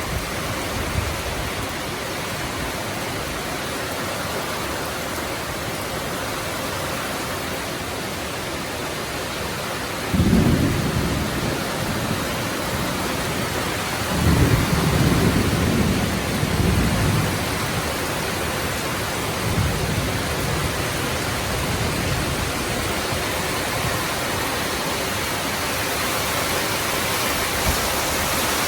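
Heavy rain pouring down steadily in a rainstorm, with low rolls of thunder: one about ten seconds in, a longer, louder roll a few seconds later, and a weaker one after that.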